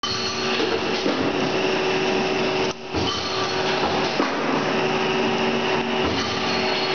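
WEEREN DH20 end finishing machine running, its two spindles turning with a steady hum while the tools face and chamfer the ends of a clamped stainless steel set screw. The sound dips briefly a little under three seconds in.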